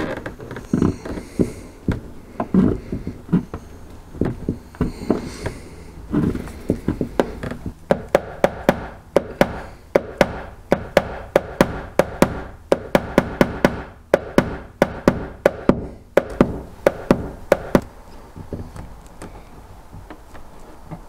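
Light hammer taps on a car's steel door panel during paintless dent repair, tapping down the metal around the dent. A few scattered softer knocks come first, then a fast run of sharp, ringing taps at about four a second for some eight seconds, before the tapping dies away.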